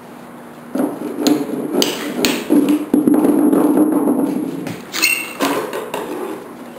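A hammer knocking several times at the foot of a pool table leg, tapping shims under it, in a loose run of sharp knocks. One strike about five seconds in gives a short metallic ring.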